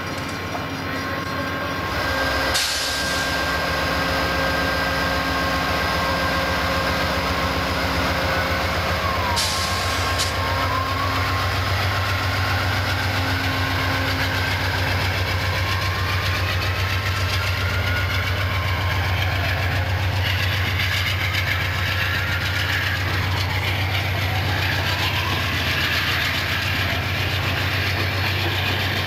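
Amtrak passenger train departing: the diesel locomotive's engine drones steadily and grows louder about two seconds in, with a single knock, then the locomotive and passenger cars roll by with wheel noise and brief sliding squeals.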